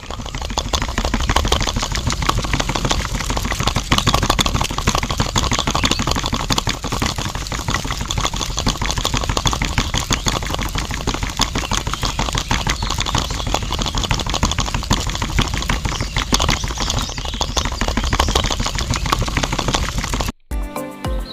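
Small motor-driven miniature machine running with a dense, rapid mechanical clatter over a low hum. It cuts off abruptly about a second before the end.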